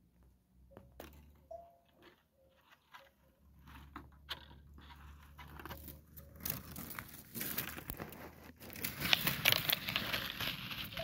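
Dry grass stalks crackling and rustling close to the microphone. At first there are scattered clicks, then a denser crackle that grows louder in the second half.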